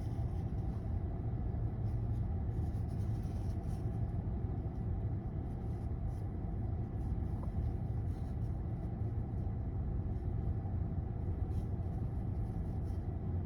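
Steady low rumble of background noise, with a few faint, quick sniffs as a stuffed-up person tries to bring on a sneeze; no sneeze comes.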